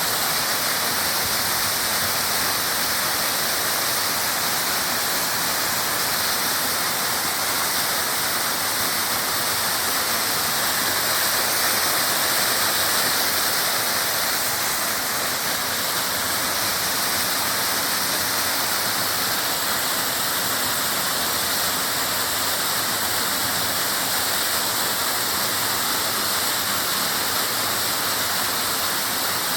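Urlătoarea waterfall: a steady, loud rush of falling water.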